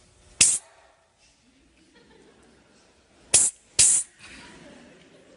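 A man hissing 'psst' to get someone's attention: one short hiss near the start, then two more in quick succession a little past halfway.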